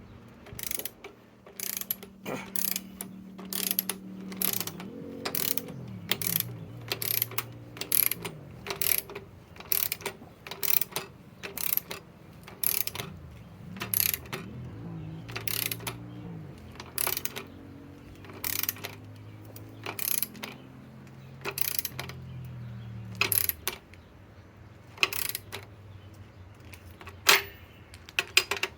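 Kobalt cordless right-angle impact wrench running and working nuts, its motor whirring and changing pitch as the load changes. Sharp ratchet-like clicks repeat roughly once or twice a second throughout.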